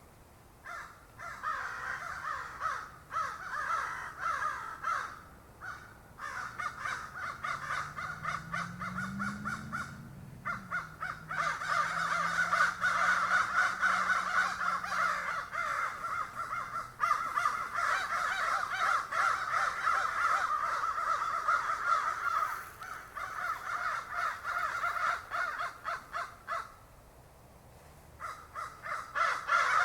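A flock of crows cawing, with many calls overlapping almost without a break and a short lull near the end.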